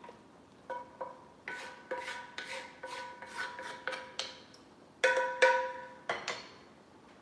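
A utensil scraping and knocking against a cast iron skillet while fat is drained from browned ground beef, a dozen or so strokes with the pan ringing after each; the loudest two knocks come about five seconds in.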